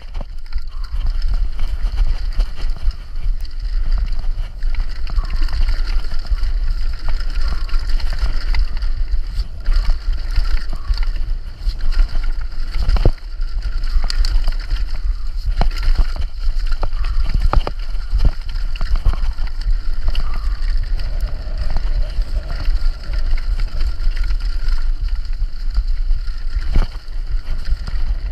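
Downhill mountain bike ridden fast over rocky dirt trail: wind rumbling on the camera microphone over the constant rattle of the bike and tyres on rock and dirt. A few sharp knocks come from hard hits on rocks.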